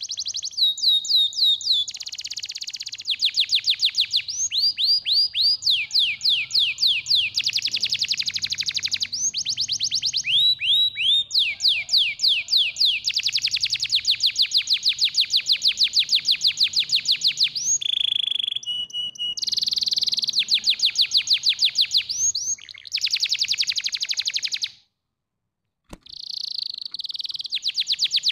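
Domestic canary singing a long song of rapid trills: each phrase is one note repeated many times a second, and the bird switches to a new note every few seconds. The song breaks off for about a second near the end, then starts again.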